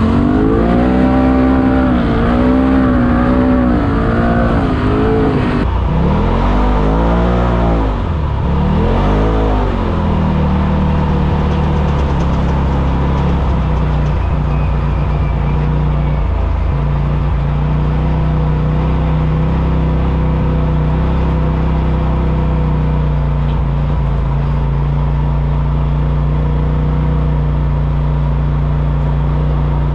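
Turbocharged Polaris RZR side-by-side engine under way on a trail, revving up and falling back again and again with quick throttle changes for about the first ten seconds, then settling into a steadier pull to the end.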